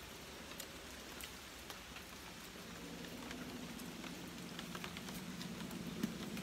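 Steady rain falling, with scattered sharp ticks through it. A low steady hum comes in about halfway through.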